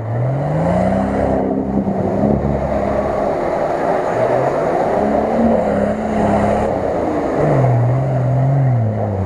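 Nissan Patrol's engine revving hard under load as the 4x4 ploughs through a deep mud-and-water crossing, its pitch climbing in the first second, then rising and falling with the throttle and dropping lower near the end. Water and mud splash and churn beneath it throughout.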